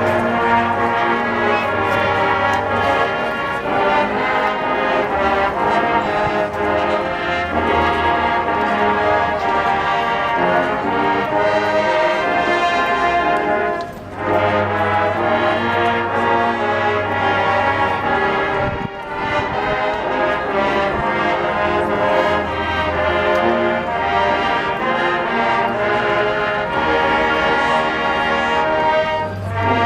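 Marching band brass playing the university alma mater in slow, sustained chords, with a short break between phrases about halfway through.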